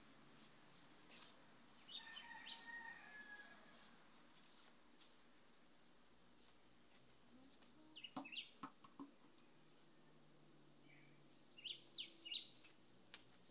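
Faint chirping of small birds: short, high, falling chirps in clusters, the busiest near the end, with a few light knocks of things being handled about two-thirds of the way through.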